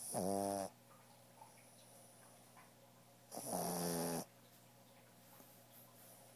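Pug snoring: two loud, buzzy snores about three seconds apart, each lasting under a second.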